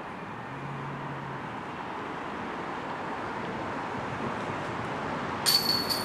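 A flying disc striking a metal disc golf basket, a sudden sharp metallic clank with jingling chains about five and a half seconds in. A steady background hiss runs underneath.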